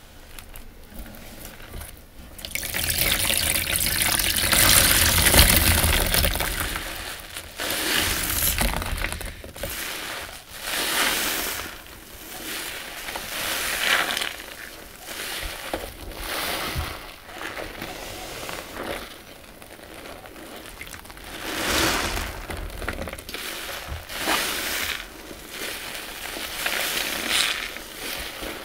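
Wet sponges squeezed over and over, liquid squelching and running out of them in repeated surges a couple of seconds apart. The longest and loudest squeeze comes a few seconds in.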